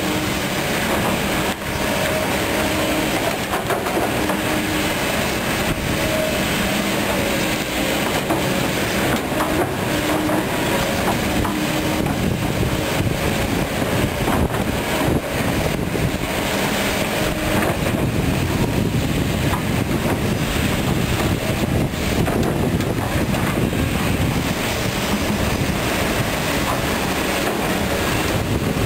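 Kobelco SK200 hydraulic excavators at work: diesel engines running under load and hydraulics moving the boom and bucket through soil, with occasional metal clanks. A steady whine sits over the din for the first several seconds.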